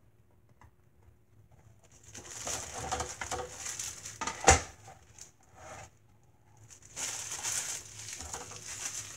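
Clear plastic packaging crinkling and rustling as it is handled, in two spells, with one sharp knock partway through the first.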